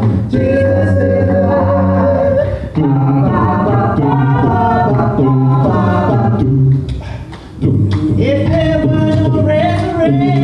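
Mixed a cappella vocal group, men and women singing close barbershop-style harmony into microphones with no instruments, with a short break about seven seconds in before the voices come back in on a high held note.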